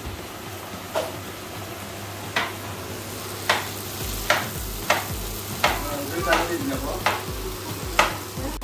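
Knife chopping green capsicum on a plastic cutting board: about nine sharp taps, irregular at first and coming faster in the second half, over a steady sizzle from food frying in a pot on the gas stove.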